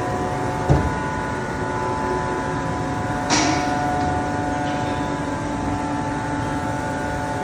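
Steady hum of a powered-up SNK RB-200F gantry machining center, several steady tones over a low rumble. A single knock comes a little under a second in, and a short hiss of air about three seconds in, after which one of the tones holds louder.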